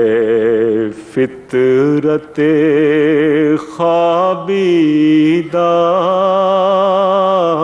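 A man singing an Urdu nazm solo and unaccompanied, drawing out the words "fitrat-e" in long held notes with a wide vibrato, broken by a few short breaths.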